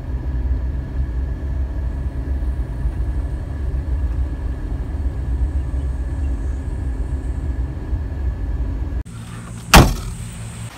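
A vehicle running with a steady low rumble that cuts off suddenly about nine seconds in. A single sharp, loud knock follows, then a quieter steady hiss of wind and surf.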